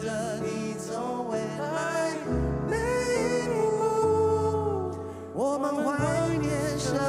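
Live Mandarin pop ballad: male voices singing over grand piano accompaniment, one long held note that ends about five seconds in before the next line swoops up.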